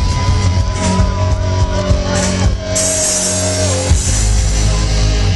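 Rock band playing live through a big festival PA, heard from within the crowd, with long held notes over drums and steady bass.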